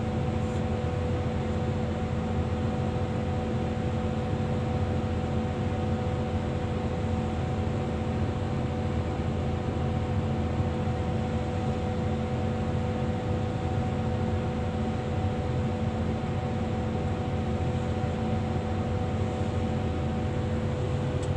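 Excavator diesel engine idling, heard from inside the operator's cab: a steady low drone with a few constant humming tones over it. One of the higher tones drops out near the end.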